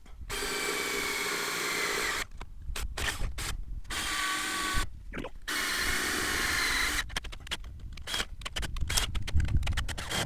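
Power drill running in three bursts of about two seconds each, with a steady whine, drilling holes in sheet metal, most likely enlarging pilot holes to fit nutserts. Irregular clicks and knocks follow near the end.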